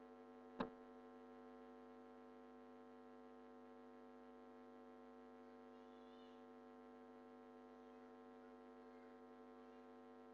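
Near silence with a steady, faint electrical hum, and a single short click about half a second in.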